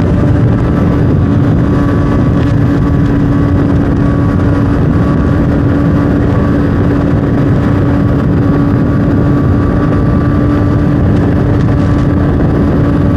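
A 2012 Honda CBR600RR's inline-four running through an aftermarket slip-on exhaust, loud and holding one steady engine speed, with a dense rushing noise around it.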